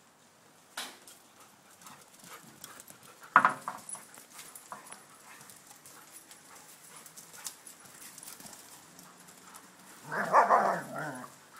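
Dogs at play: scattered scuffling and clicks, a sharp bark about three and a half seconds in, and a louder second-long outburst of barking near the end.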